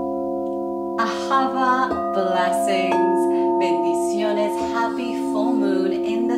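Several crystal singing bowls ringing together in steady, overlapping held tones, with a woman's voice joining on top about a second in.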